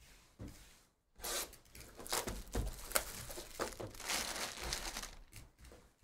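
Wrapping being torn and crinkled off a sealed trading-card box as it is opened: dense crackling starts about a second in, with sharp snaps through the middle, and dies down near the end.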